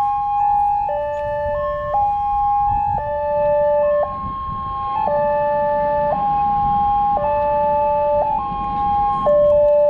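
Two electronic level-crossing warning alarms sound together at one railway crossing. Each steps back and forth between a higher and a lower note about once a second, the two out of step with each other. They sound with the barrier closed, warning of an approaching train.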